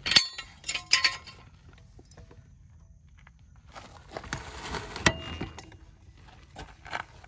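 Floor jack being worked to lift a car by its pinch weld: sharp metal clicks and clinks, two close together near the start, then a quiet pause and a noisier stretch with another sharp click about five seconds in.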